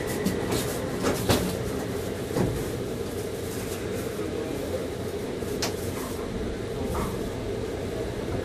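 Steady hum of a Taipei Metro Wenhu Line train standing at a station. Several short knocks and clunks come over it, the loudest about a second in.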